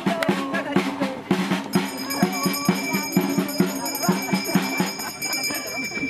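Live folk dance music: a small hand drum beaten at a quick, steady pulse, with voices over it. A thin, steady high tone comes in about two seconds in.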